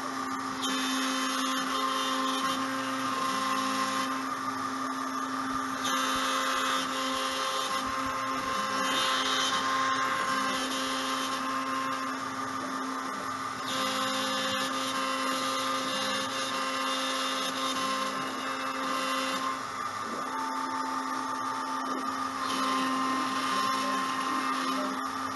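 A router motor running steadily with a whine, its tones shifting and changing every couple of seconds.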